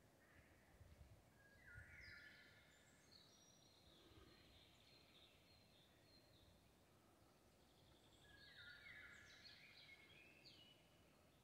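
Eurasian golden oriole singing faintly: two short fluty whistled phrases, about two seconds in and again about three quarters of the way through. Other songbirds call softly in between.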